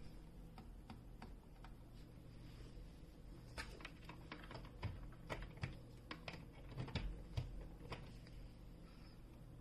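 Scattered light clicks and taps, irregular and closest together in the middle, over a faint steady low hum.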